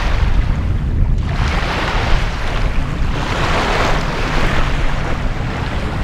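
Small lake waves washing up on a sandy shore, the hiss of each wash swelling and fading every second or two, over a steady low rumble of wind on the microphone.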